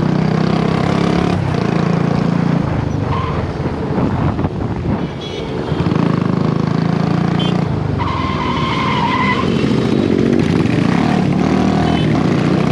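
Royal Enfield Bullet 350's single-cylinder engine running under way, with wind rush. The engine note eases off for a couple of seconds near the middle, then picks up again.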